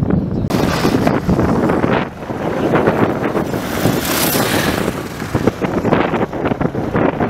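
Wind buffeting the microphone over the sound of race motorcycles and a car driving past on cobblestones, swelling around four seconds in as a motorcycle comes close.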